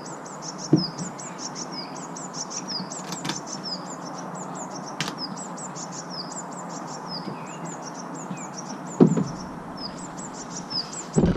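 A bird singing rapid, repeated high chirps throughout, over a steady background hiss. A few sharp knocks come about a second in, around nine seconds in and just before the end.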